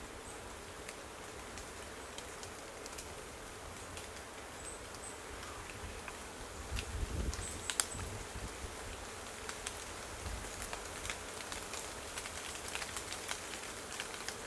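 Light rain, scattered drops ticking irregularly, with a low rumble of wind on the microphone about halfway through. Two brief high chirps come near the middle.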